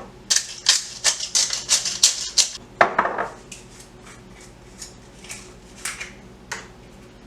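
Spice and seasoning shakers being shaken over chicken, a quick run of rattling shakes about three a second, then a few single shakes spaced out near the end.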